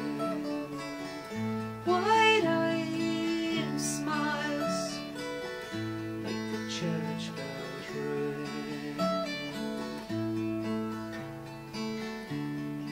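Two acoustic guitars playing a folk song's instrumental passage, strummed chords over bass notes that change every second or so.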